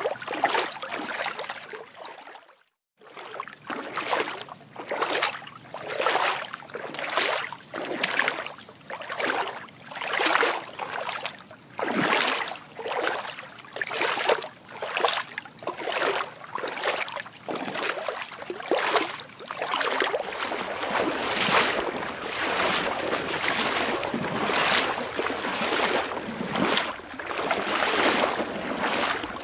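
Water sloshing and washing in a steady rhythm, about one swell a second, with a brief break about two and a half seconds in.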